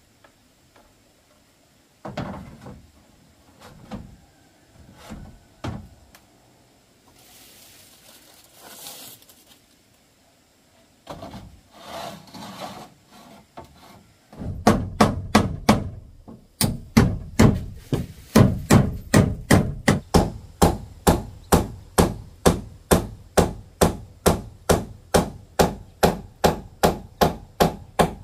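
Hammer driving nails through corrugated roofing sheets into a wooden frame: loud, evenly spaced strikes about two a second from about halfway on, after scattered knocks and scraping as the sheets are moved into place.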